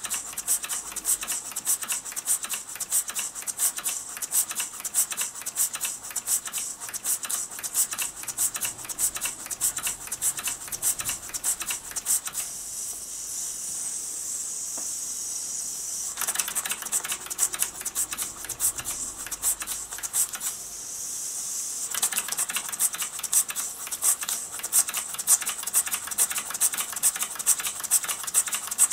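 Mamod SP7 twin-cylinder sleeve-valve model steam engine running fast, its exhaust beats a rapid even clicking over a steady hiss. Twice, about twelve seconds in and again around twenty seconds, the beats drop out for a few seconds and only the hiss is left.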